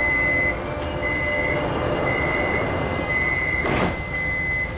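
Metro train door-closing warning: five high beeps about a second apart, as the car's sliding doors shut with a short sharp noise a little before the last beep.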